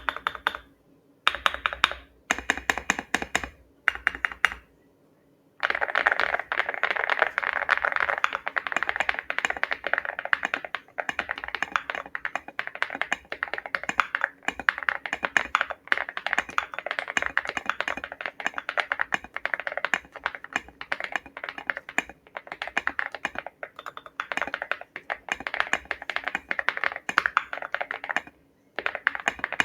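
Typing on a mechanical keyboard fitted with KTT Hyacinth linear switches, as a sound test of the switches both hand-lubed with Krytox 205 Grade 0 and stock. A few short runs of keystrokes with pauses during the first five seconds, then fast, steady typing with a brief pause near the end.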